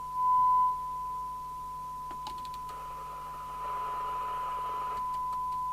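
Steady single-pitch test tone, like a radio test set's audio tone, louder for a moment near the start. About three seconds in, a band of receiver hiss joins it for roughly two seconds.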